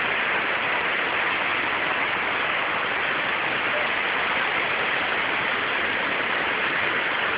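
Steady rush of falling water from the Krushuna waterfalls, an even hiss with no breaks.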